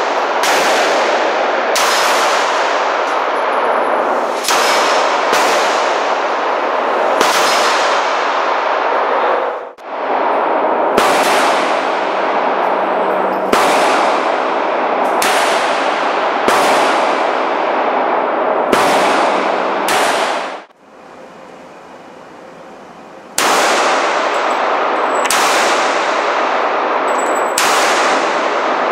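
Pistol shots fired one at a time, a Glock 17 9 mm and a Ruger Mark III .22, each shot ringing on in the echo of an indoor range. About twenty shots come roughly a second apart, with one short quieter break a little past two-thirds of the way through.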